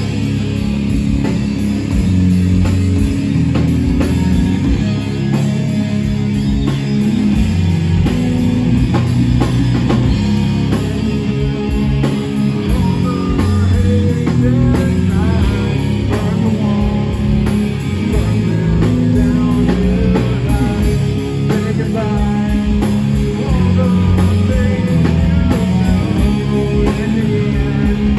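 A rock band playing loud and live, with electric guitars, bass guitar and a drum kit, and a vocalist singing into a microphone.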